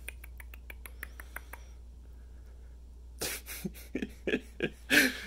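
Guinea pig nibbling at a fingertip: faint quick clicks, about five or six a second. About three seconds in comes a much louder run of short rhythmic sounds, about three a second.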